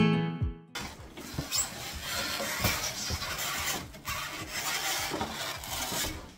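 Large white plastic shower-kit panels being handled and shifted by hand, rubbing and scraping against one another with light knocks. Strummed guitar music cuts off within the first second.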